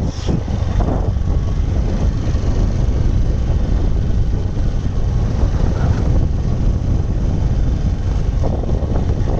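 Steady low rumble of wind buffeting the microphone while moving along a dirt forest track.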